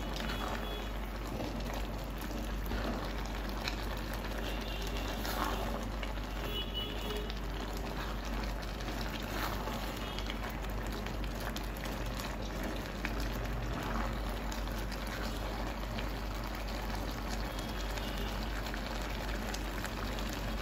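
Beans and plantain porridge simmering in a pot, a steady bubbling hiss with scattered small pops, while it is stirred with a silicone spatula.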